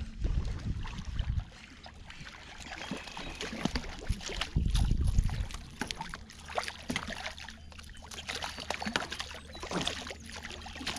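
Splashing and sloshing water with short knocks and rustles as a hooked fish thrashes at the surface beside a plastic kayak among reeds. A low rumble on the microphone comes twice, in the first second and again about five seconds in.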